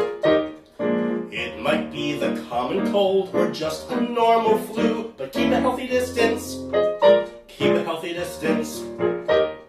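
Piano accompaniment with a man singing over it.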